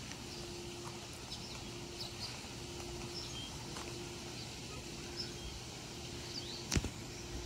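Small birds give short, scattered chirps over a steady outdoor hiss, with a single sharp knock near the end.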